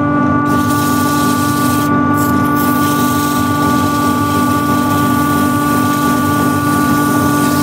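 Wood lathe running while the spinning cherry bowl is sanded: a steady hiss of abrasive on the wood over the lathe motor's steady whine.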